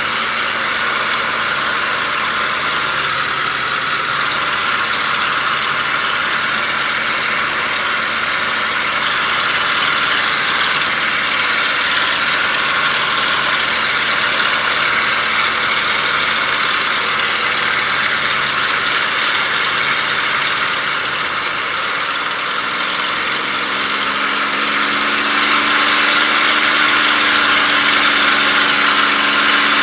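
P-51 Mustang's V-12 piston engine heard from inside the cockpit in flight, a loud steady drone. About two-thirds of the way through, the engine note changes and grows a little louder.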